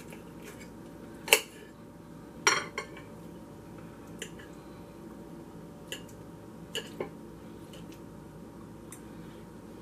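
Table knife and fork clinking and scraping against a bowl while cutting a baked chicken thigh on noodles: a string of short, sharp clinks, loudest about a second in and again at about two and a half seconds, then lighter taps through the rest.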